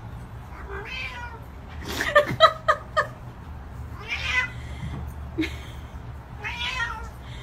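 Cat meowing, a string of separate calls with a quick cluster of several about two seconds in and single calls before and after.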